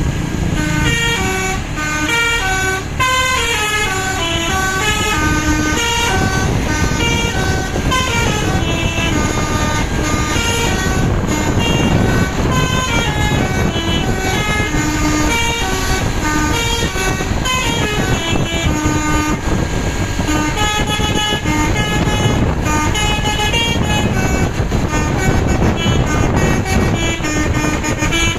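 Bus 'telolet' musical air horns playing melodies of quick held notes that step up and down in runs, one tune after another, over engine noise.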